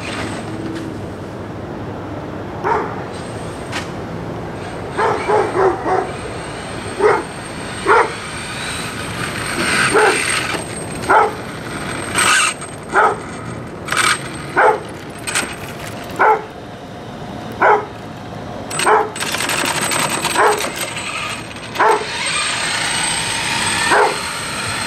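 A dog barking repeatedly, roughly once every second or so, with a quick run of barks about five seconds in. Under the barking, a battery-electric RC truck passes at speed with a rushing of motor and tyres about ten to twelve seconds in.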